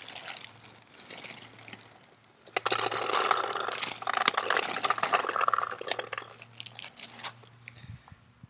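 Paintballs rattling as they are poured into a paintball hopper: a dense run of small clicks lasting about four seconds, starting near three seconds in, with lighter scattered clicks of handling around it.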